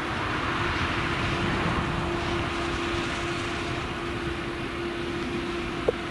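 Claas Jaguar 970 forage harvester's V8 engine and chopper running steadily while chopping sorghum, mixed with the tractor pulling the trailer alongside: a steady hum with a rushing noise above it. A short chirp is heard near the end.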